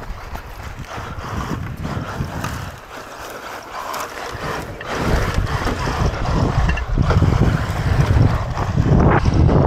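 Xray XB4 radio-controlled car racing over a dirt rally stage, heard on board: wind rushing over the microphone with rattling knocks from the rough ground. It grows louder about five seconds in.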